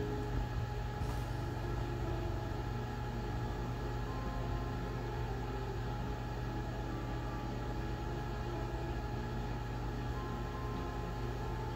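A steady low hum with faint steady tones over it, even in level throughout and with no distinct handling or tool sounds.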